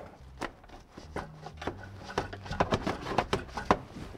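Scattered light clicks, taps and scrapes of hands and a tool working up under a car around the exhaust downpipe, over a faint steady low hum.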